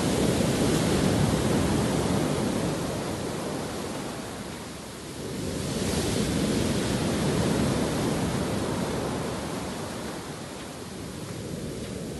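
Mediterranean sea surf breaking and washing up a sandy beach, in two swells: one near the start and another about five and a half seconds in, each fading as the water runs back.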